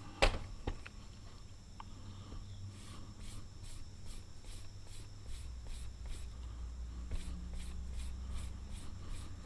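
A steel broadhead edge being stroked lightly and rhythmically across a sharpening surface, about three short scrapes a second, to break off the burr raised by filing. A single sharp knock comes just after the start.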